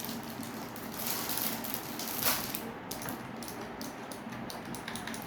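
Rustling and handling of keyboard packaging, with a sharper knock or click a little over two seconds in.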